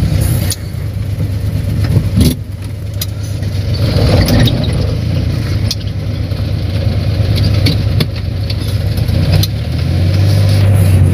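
Suzuki multicab's F6A three-cylinder engine running while the van drives, heard from inside the cab, with frequent short knocks and rattles from the body. The engine note grows louder near the end.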